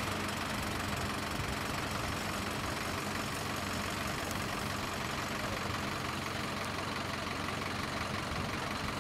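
Farm machinery engine idling steadily, an even sound with no change in pace.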